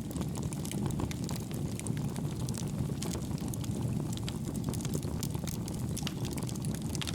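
Wood fire burning in a homemade wood gas stove made from two pail cans: a steady low rumble of flame with frequent sharp crackles and pops from the burning wood.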